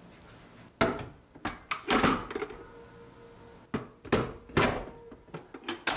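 Inner pot of an electric rice cooker being set into the cooker: a run of sharp knocks and clunks, the loudest around a second and two seconds in, with more near the end.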